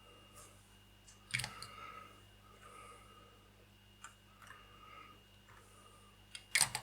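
Faint handling noise with three sharp clicks, about a second and a half to three seconds apart, of small plastic model-kit parts being handled and set down.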